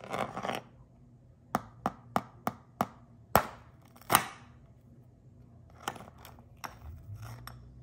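A metal spoon tapping on the hard caramelized sugar crust of a crème brûlée. It gives about five quick light taps, then two harder strikes that crack the crust, then a few lighter taps near the end.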